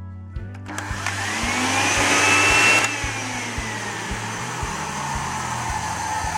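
Clatronic canister vacuum cleaner switched on about a second in. Its motor whine rises in pitch as it spins up, then it runs on with a steady rushing noise.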